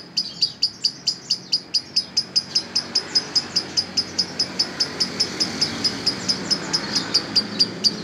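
Fischer's lovebird in a long unbroken run of its chattering song, the 'manjer' that keepers prize: sharp, high chirps repeated evenly at about five a second without a pause.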